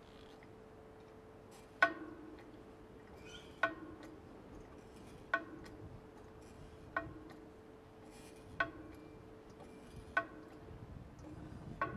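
Hand-operated hydraulic pump of a filter press worked with its long lever, pumping up pressure to clamp the plates. Each stroke gives a sharp metallic click with a short ring, roughly every 1.7 seconds, seven times.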